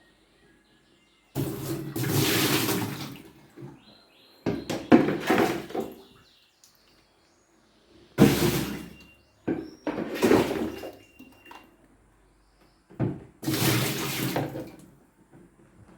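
Water gushing and splashing in five separate bursts of one to two seconds each, with short quiet gaps between them.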